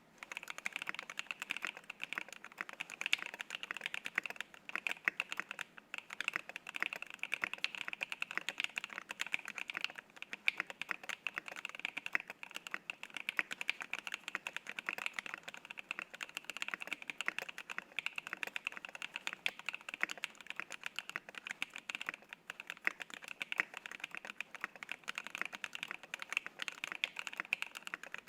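Fast, continuous typing on a custom gasket-mount 75% mechanical keyboard with lubed and filmed NK Silk Yellow linear switches, an aluminium plate and MT3 PBT keycaps. A dense stream of keystroke clacks with no pauses.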